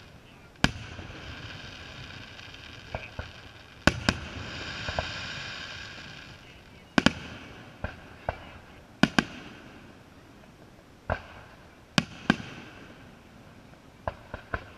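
Aerial firework shells bursting: more than a dozen sharp bangs at irregular intervals, several coming in quick pairs.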